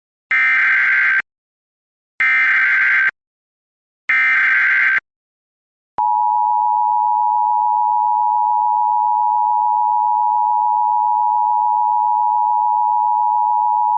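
Emergency Alert System opening: three bursts of SAME digital header data tones, each just under a second long with about a second of silence between them. Then the two-tone EAS attention signal (853 and 960 Hz together) holds steady for eight seconds.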